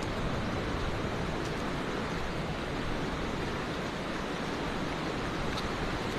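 Steady rushing water of a waterfall: a constant, even roar with no breaks.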